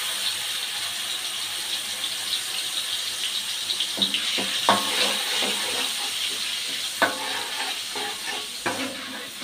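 Blended chili spice paste sizzling in hot oil in a wok, a steady frying hiss. From about four seconds in a metal spatula stirs it, knocking and scraping against the wok a few times.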